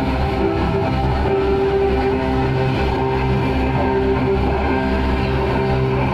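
Slow ambient music: long held notes that change about every second, over a steady low rumble.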